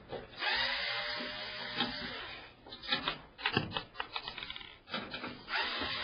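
Electric screwdriver running as it backs screws out of the back of a PC case, in two runs: one from just after the start, one near the end. Between them come a series of sharp clicks and knocks.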